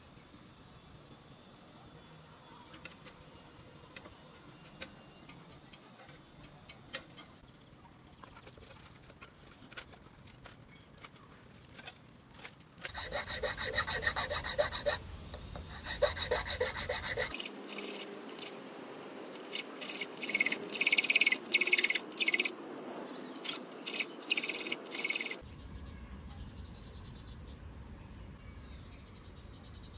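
Faint scattered clicks of handling, then about thirteen seconds in, fast rhythmic rasping strokes of a hand tool shaping a homemade Beyblade part. The strokes stop and start again several times.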